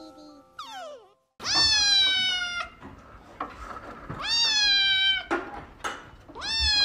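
Grey-and-white kitten meowing three times, about two seconds apart: loud, drawn-out meows that each rise quickly and then slide slowly down in pitch.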